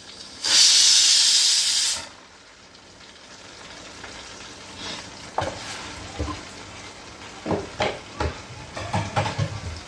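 A loud hiss from hot cookware for about a second and a half, starting and stopping abruptly, followed by quieter scattered light knocks and clinks of kitchen utensils.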